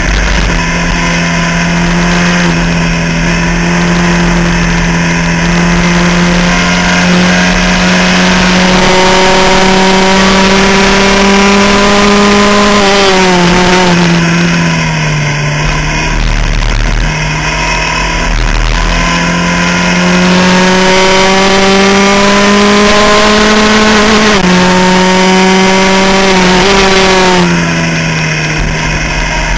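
Onboard sound of a Skip Barber open-wheel formula race car's engine at racing speed. The revs hold steady, then climb slowly, fall away about halfway through, climb again and drop twice near the end as the driver lifts and brakes for corners.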